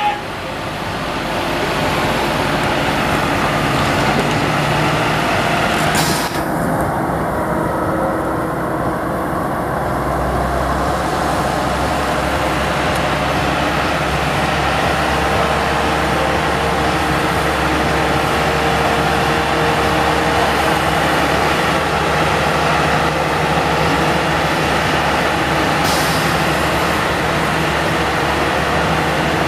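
A train running with a steady engine drone and hiss. There is a sharp click about six seconds in and another near the end.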